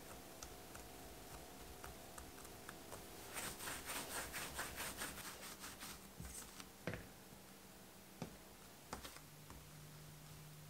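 Hands rolling a rope of bagel dough back and forth on a countertop: a quick run of soft rubbing swishes, about four or five a second, for a couple of seconds partway through, followed by a few faint ticks.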